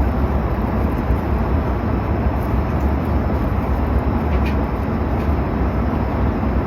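Steady rumble and hiss of an airliner cabin in flight, the engine and air noise heard from inside.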